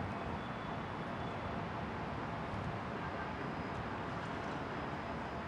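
Steady ambient hiss and low rumble of a near-empty stadium, with no distinct events standing out.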